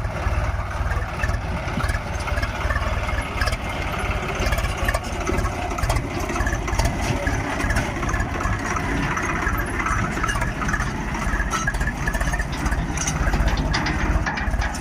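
Heavy diesel machinery engine running steadily with a fast low throb, with scattered knocks and clanks over it.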